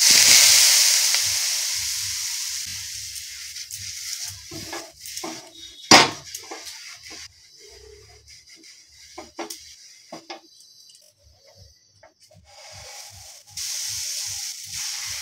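Water splashed onto a hot dosa tawa hisses loudly, the sizzle fading away over several seconds, with one sharp knock about six seconds in. A cloth then rubs over the griddle, and near the end dosa batter poured onto the hot tawa starts to sizzle.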